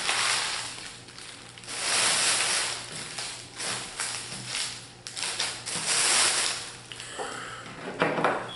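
Empty foil booster-pack wrappers being crumpled and stuffed away by hand: several loud swells of crinkling with sharp crackles.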